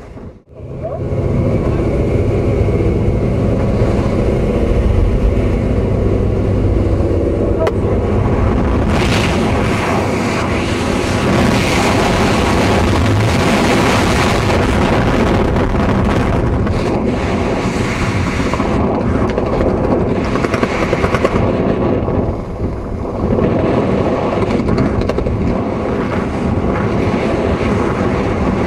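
Wind rushing and buffeting over a helmet-mounted camera's microphone during a parachute descent under an open canopy. The noise is loud and steady, with a brief dropout just after the start.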